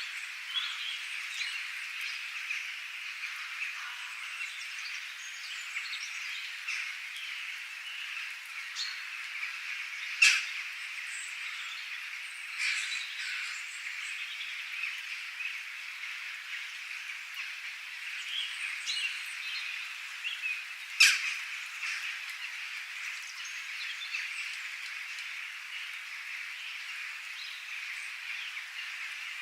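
Nature ambience: a dense, steady chorus of frogs with scattered bird chirps over it. Two sharp, loud clicks or calls stand out, at about 10 seconds and again at about 21 seconds.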